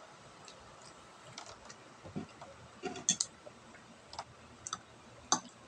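Eating sounds from two people eating boiled cassava with their fingers: a scattering of small, sharp clicks and smacks spread over a few seconds, the loudest near the end.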